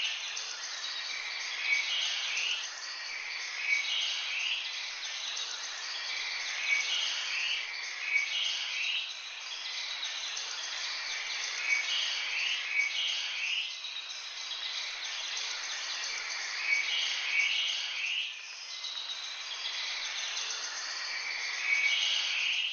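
Birds chirping in short, bright phrases that recur every second or two, over a steady high hiss.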